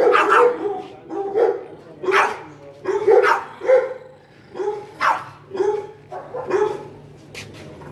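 A dog in a wire crate barking repeatedly, with short barks coming about one to two a second, at a hand reaching toward the crate.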